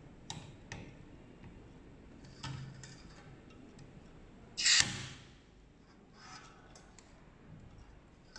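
Butane gas canister being pressed onto a portable stove's refill valve: light metal clicks and taps as the nozzle seats, with one short loud rush of noise a little past halfway as gas is pushed into the stove's storage.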